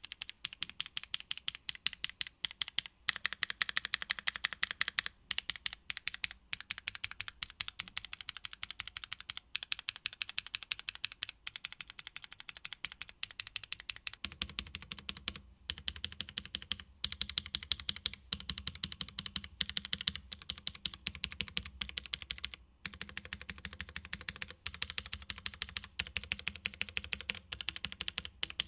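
Fast, continuous typing on a KBDfans Tofu65 2.0 mechanical keyboard with Gateron Blizzard tactile switches, a PC plate and ABS keycaps, with a few short pauses. About halfway through, the keystrokes take on a deeper, fuller low end.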